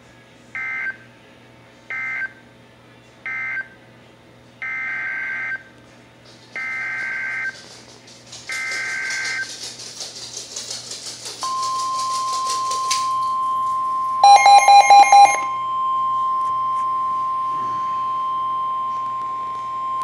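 NOAA Weather Radio Emergency Alert System data and tones through a weather radio's speaker: three short warbling SAME end-of-message bursts, then three longer SAME header bursts announcing the next warning. After a rush of static, the steady 1050 Hz warning alarm tone starts about halfway through and holds to the end, with a brief burst of rapid electronic beeping over it a couple of seconds after it starts.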